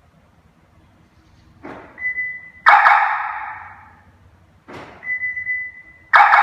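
Hollywood Siren Plus aftermarket car security siren playing an arrow-style sound effect. It goes through the cycle twice: a short swish into a held high beep, then a sudden loud hit that fades over about a second.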